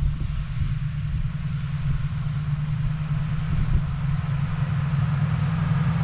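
Pickup truck towing an enclosed trailer, driving slowly toward the listener: a steady low engine hum, growing gradually louder as it approaches.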